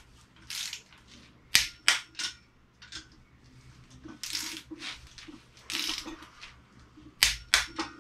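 Click-type torque wrench on the cylinder-head bolts during the first 30 Nm tightening stage, giving two groups of about three sharp clicks as it breaks at the set torque, with short rasping ratchet strokes between pulls.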